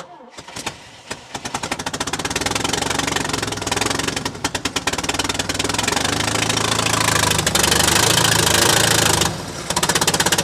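1974 International Scout Terra engine catching after cranking and running roughly on rapid, uneven exhaust pulses, briefly dropping away near the end and picking up again. The owner hears a bad exhaust leak and calls the engine "junk", with the timing "super retarded".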